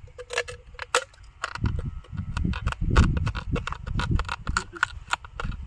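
Glass crunching as a man bites pieces off a brown glass bottle and chews them: a run of sharp, irregular cracks.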